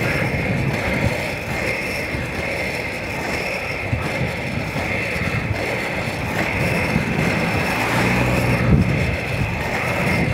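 Inline skate wheels rolling steadily over an asphalt road, a continuous rushing noise.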